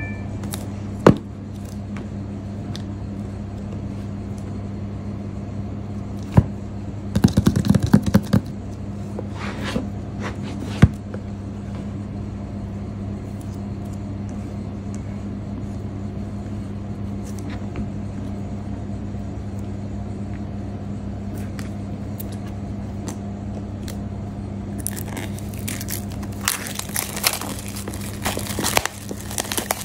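Hands handling a shrink-wrapped box on a tabletop: a few sharp taps and knocks, then crinkling and scraping of the plastic wrap near the end, over a steady low hum.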